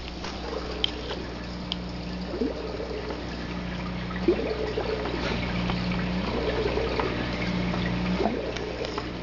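Water trickling and splashing steadily from a small aquarium filter into a 5-gallon tank, over a steady low hum.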